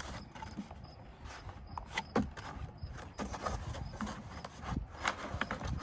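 Scattered knocks, scrapes and rubbing from handling a Halloween animatronic's parts and packaging in a cardboard box, with a few sharper knocks about two seconds in and near the end.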